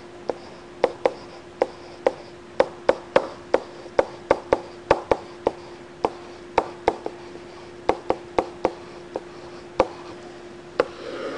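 Stylus tapping and clicking on a tablet surface as words are handwritten: irregular sharp taps, a few a second, over a faint steady hum.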